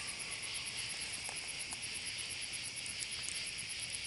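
Night chorus of crickets and other insects: a steady high trill with a fast, regular ticking above it.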